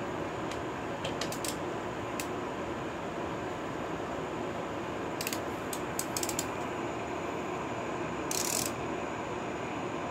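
Ratchet wrench clicking in short runs on the crankshaft bolt of a Suzuki DR-Z125 engine, through the side-cover access hole, turning the engine over by hand to set it for a valve adjustment. There is a longer rasping sweep of the ratchet about eight seconds in.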